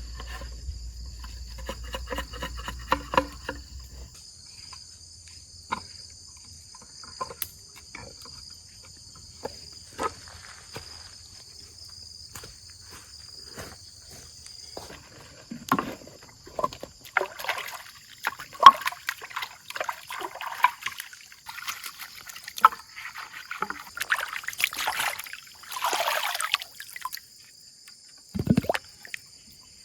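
Steady high insect chorus of crickets or cicadas, with irregular knocks, clicks and splashy rustling bursts of water and handling that grow busier in the second half.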